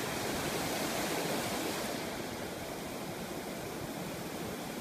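Ocean surf washing onto the beach, a steady rushing noise.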